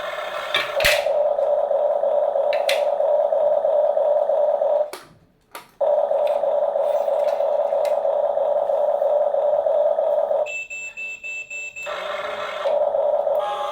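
Small electric motor and gearbox of a remote-control toy whirring steadily, stopping briefly about five seconds in, then stopping again near the end while a thin high beep sounds, before whirring on.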